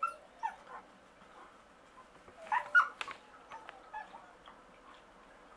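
Alaskan Malamute whining in short, high whimpers: a couple near the start, the loudest pair about two and a half to three seconds in, then a few faint ones.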